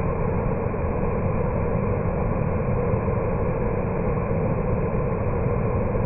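Waterfall pouring over a rock ledge into a pool: a steady, even rush of falling water.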